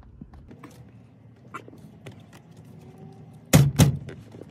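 A few light clicks and taps, then two loud thuds about a third of a second apart near the end.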